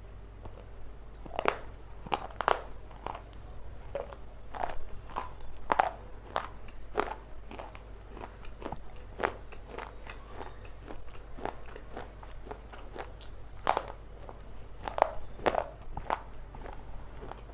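Close-miked biting and chewing of something hard and crunchy, with irregular crackling crunches and a few louder bites.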